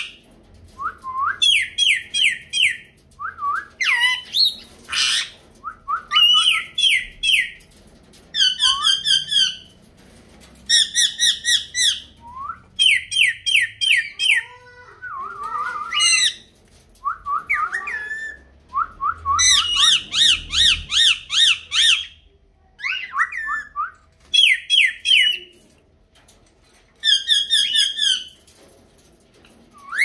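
Indian ringneck parakeets squawking in quick runs of four to six shrill notes, run after run with short pauses between.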